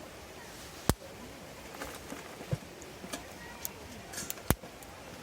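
Two loud sharp clicks, about a second in and near the end, with fainter irregular ticks between them over a steady background hiss.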